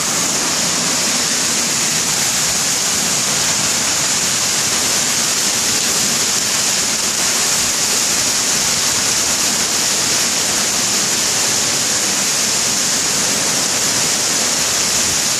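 Heavy wind-driven tropical downpour: a steady, loud rush of rain pouring down.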